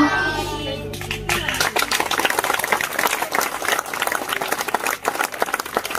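An audience applauding. It starts about a second in, as the music before it dies away.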